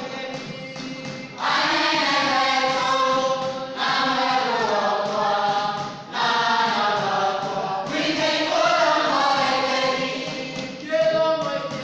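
A group of voices singing a chant-like song together, louder from about a second and a half in, with light rhythmic taps at the start.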